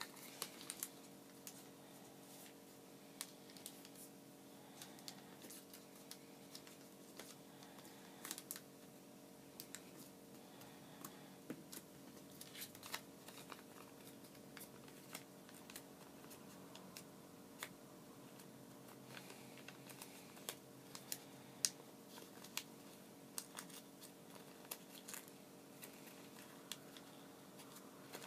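Origami paper being folded and creased by hand: faint, irregular small crackles and clicks of paper under the fingers, over a steady low hum.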